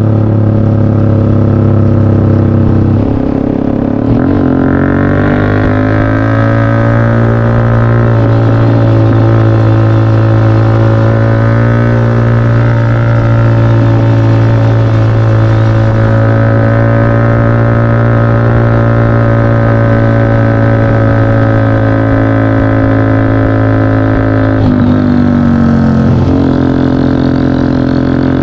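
Off-road 4x4's engine droning steadily while driving. The revs dip and then climb smoothly about three seconds in, and again near the end.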